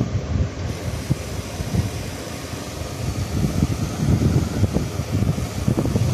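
Low, uneven rumble of moving air buffeting the microphone, with no clear pitch, dipping a little in the middle and picking up again.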